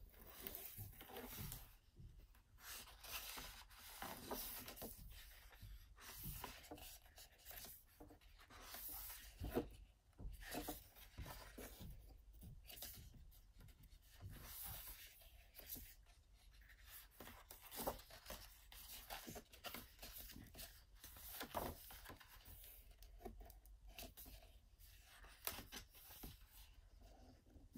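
Pages of a large hardcover photobook being turned by hand: faint, intermittent rustles and swishes of heavy paper, one after another, with a sharper one about ten seconds in.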